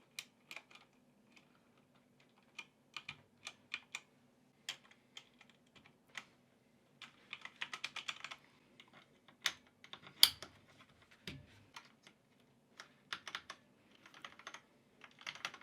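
Irregular plastic clicks and clacks of a Corsair K95 RGB Platinum XT mechanical keyboard as keycaps are pulled off and pressed back onto the key switches, with a denser run of clicking about halfway through and one sharper click a little later.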